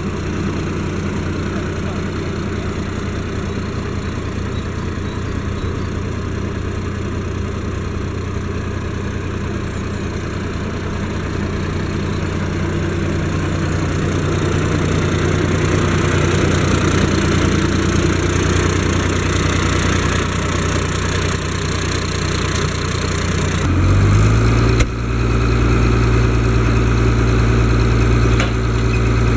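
Case IH 1056 XL tractor's six-cylinder diesel engine running steadily close by. About three-quarters of the way through, the engine note steps up in pitch.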